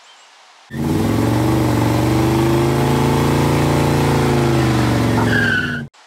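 A car engine revving, its pitch climbing and then easing back, with a short high squeal near the end. The sound is loud and starts and cuts off abruptly.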